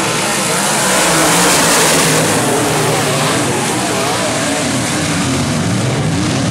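A pack of dirt-track modified race cars running the oval, their engines rising and falling in pitch as they power through the turns, loudest about a second in.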